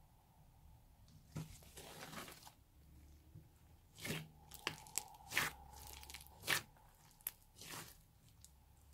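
Hands pressing and kneading a large clay slime studded with small beads, giving irregular crackling pops and crunches, with a few sharper snaps in the middle.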